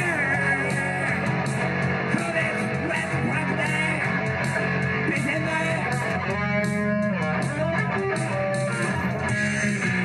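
Live rock music with guitar playing continuously, including some sliding, bending notes.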